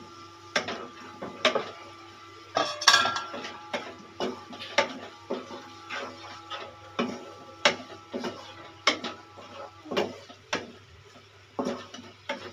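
Wooden spatula knocking and scraping against a nonstick kadai while stirring okra into yogurt masala, in repeated irregular strokes about one or two a second.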